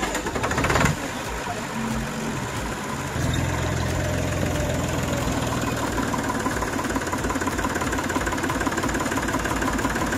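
The Torpedo Deutz 45 06 tractor's air-cooled, Deutz-licence diesel engine running with its bonnet off. It is disturbed briefly near the start, then settles into an even idle that steps up a little about three seconds in, with a steady whine above the engine beat.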